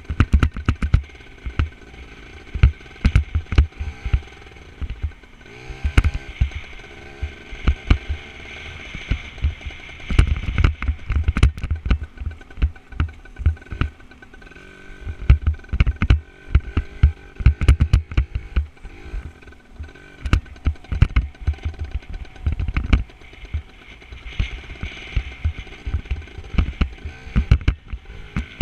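Dirt bike engine running while riding a rough dirt track, picked up by a helmet-mounted camera, with many sharp knocks and thumps throughout.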